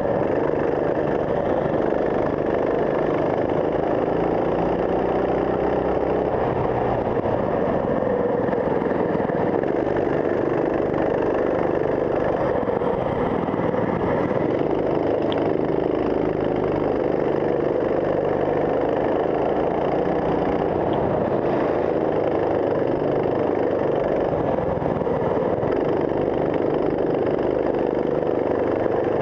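Racing kart engine running hard at close range, its pitch rising and falling over and over as the kart accelerates down the straights and slows into corners.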